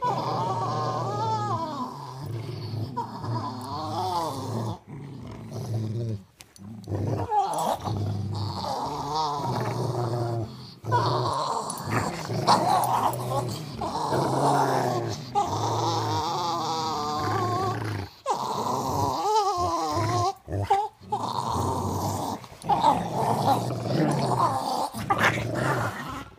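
Dogs growling almost without a break as they play tug-of-war with a rope toy, the growls rising and falling in pitch with a few short pauses. This is play growling during a tussle over the toy.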